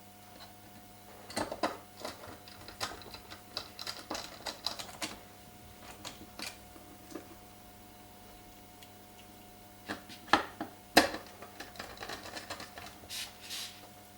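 Light clicks and taps of small parts of an Apple TV 4 being handled and fitted back together, in two bursts, with a couple of sharper clicks about ten and eleven seconds in.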